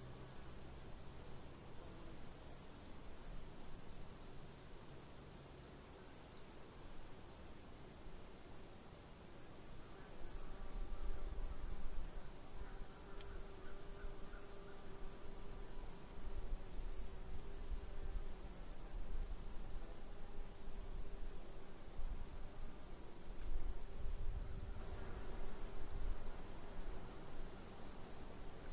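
Crickets chirping: a steady high-pitched trill with a second, slightly lower chirp pulsing evenly at about three a second. A faint low rumble sits beneath from about ten seconds in.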